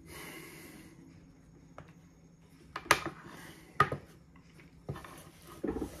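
Small metal tins handled and set down on a wooden tabletop: a soft rustle, then a few sharp metallic clacks, the loudest about three and four seconds in.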